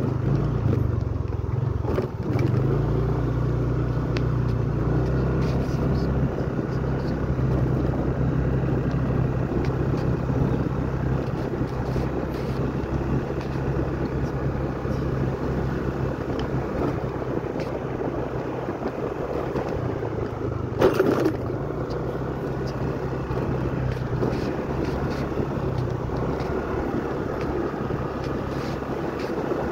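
Engine of a slow-moving road vehicle running steadily as it travels along, with a short burst of noise about two-thirds of the way through.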